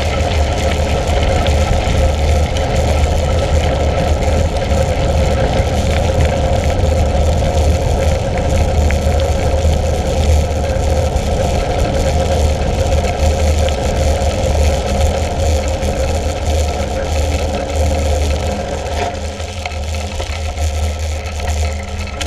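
Steady rush of wind on an action camera's microphone, with tyres rolling over a gravel track, while riding a mountain bike; it eases a little near the end.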